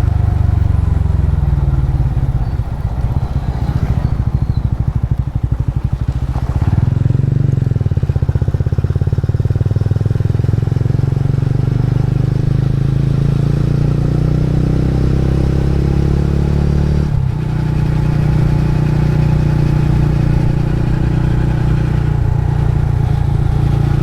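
Motorcycle engine heard from the bike while riding: the revs fall off over the first few seconds, pick up again about seven seconds in and climb steadily. About seventeen seconds in they drop suddenly at a gear change, then hold steady while cruising.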